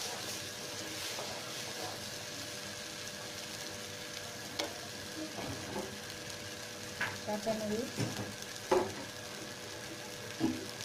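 Raw rice being fried and stirred in hot oil in a nonstick pan: a steady sizzle with the scrape of stirring. A few sharp knocks and clatters come in the second half.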